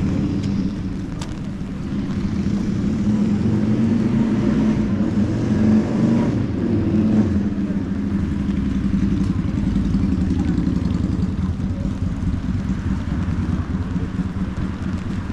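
Motor-vehicle traffic on a wet city street: an engine rumble builds about two seconds in, stays strongest for several seconds, then eases.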